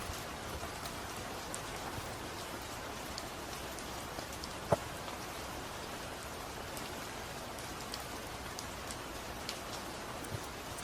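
Steady rain falling, an even hiss with scattered drip ticks, and one sharper click about halfway through.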